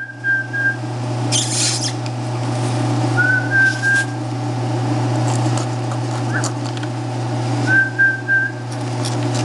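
Emu chicks whistling from inside their pipped eggs: three short runs of thin whistled peeps, one at the start, one about three seconds in and one near the end, over the steady hum of the hatcher's fan. A brief scratchy rustle about a second and a half in.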